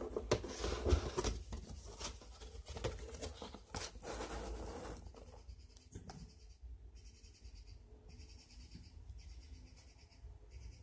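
Cardboard model-kit box being handled and stood up on a table: rustling, scraping and light knocks, busiest in the first half, then quieter with a soft knock about six seconds in.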